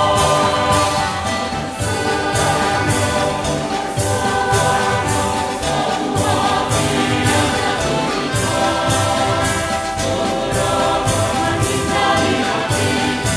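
Mixed choir of men and women singing a march to instrumental accompaniment, with a steady beat of about two strokes a second.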